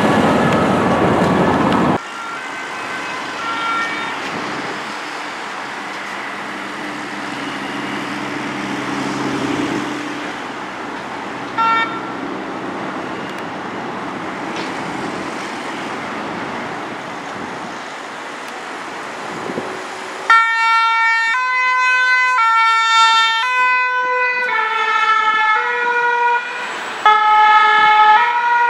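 Motorway traffic running, then from about two-thirds of the way in the loud French two-tone siren of a fire brigade's Renault Master ambulance, alternating between two pitches. The pitch sits a little lower once the van has passed.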